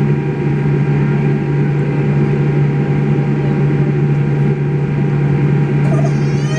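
Steady cabin noise inside a Boeing 787 Dreamliner taxiing: a constant low hum with faint steady tones above it and an even rush.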